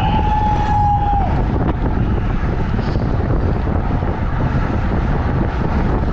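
Wind buffeting a GoPro's microphone on a bicycle racing at speed: a steady, heavy rush. A single held high tone ends about a second in.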